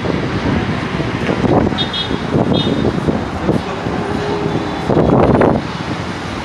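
Street traffic noise, vehicles passing continuously, with a louder swell about five seconds in.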